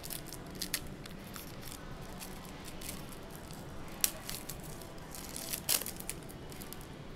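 Foil wrapper of a Recon basketball trading-card pack being torn open and crinkled by hand: scattered sharp crackles, the loudest about four seconds in and again a little before six seconds.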